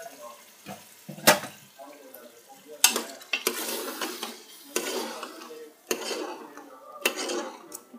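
Metal ladle stirring boiled daal maash into hot fried masala in a metal pressure cooker: a sharp knock of the ladle on the pot about a second in, then repeated scraping strokes against the pot, about one a second, with a sizzle as the wet daal meets the hot masala.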